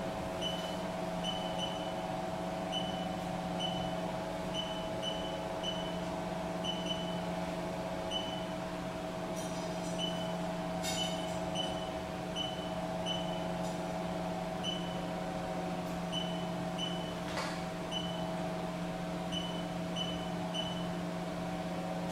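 Short high beeps from a touchscreen control panel, one per key tap, coming irregularly as setpoint numbers are typed in, over a steady low electrical hum.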